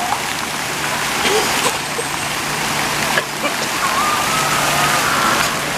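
Steady rush of water in a hotel pool, with a couple of sharp splashes or knocks.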